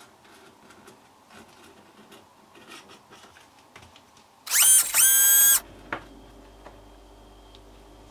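Faint light scraping and tapping of a utensil spreading glaze over a lemon tart. About four and a half seconds in, a loud whirring whine sounds in two short pulses, rising in pitch at its start, about a second in all.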